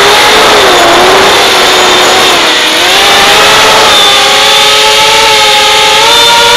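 FPV quadcopter's brushless motors and propellers whining loudly, recorded by the camera on the quad itself. The pitch drops and rises with the throttle, then holds steadier and a little higher from about four seconds in.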